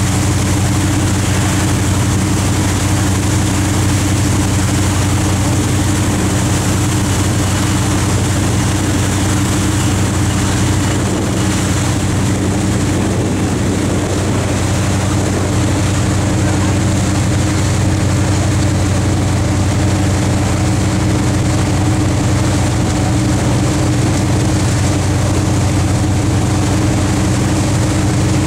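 A boat engine running steadily, a constant low drone, with water rushing past the hull.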